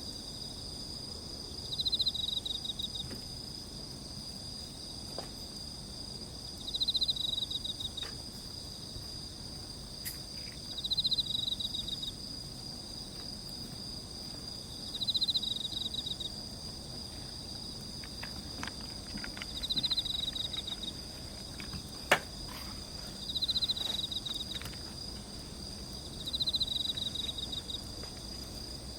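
Night insects calling: a steady high-pitched trill, with a pulsed chirping phrase about a second long repeating roughly every four seconds. Now and then a sharp crackle from the campfire, the loudest about two-thirds of the way through.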